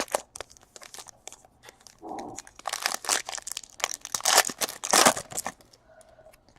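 Crinkling and tearing of a foil trading-card pack wrapper, with light clicks of cards being handled. The crackling is loudest from about the middle until a little past it.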